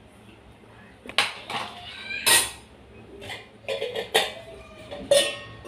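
Metal cookware clinking and clanking as a steel lid is handled against the kadhai to cover it. There are several separate knocks, some with a brief metallic ring, and the loudest comes a little over two seconds in.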